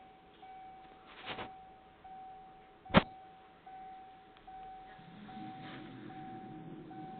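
Railway level-crossing warning signal ringing in an even, repeating single-tone pulse, a little over one per second. One sharp knock about three seconds in is the loudest sound, and from about five seconds a low rumble of the arriving NStCM train grows in beneath the signal.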